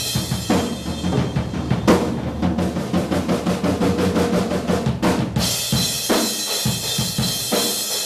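Drum kit music: a fast rock beat on bass drum and snare, with cymbals crashing and ringing from about five seconds in.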